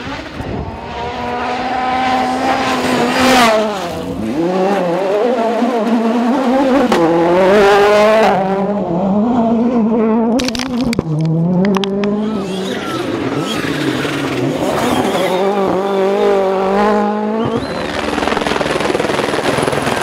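Rally car engines revving hard as cars pass one after another on gravel stages, the pitch climbing and dropping through gear changes. A spray of gravel clatters about halfway through. Near the end a helicopter's rotor hiss and high turbine whine take over.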